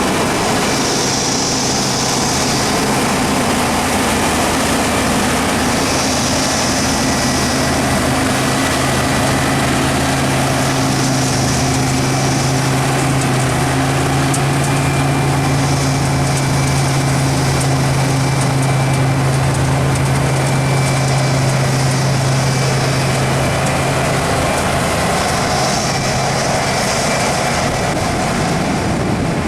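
Combine harvester running steadily at working speed, a deep even hum with a higher hiss that swells and fades about every five seconds.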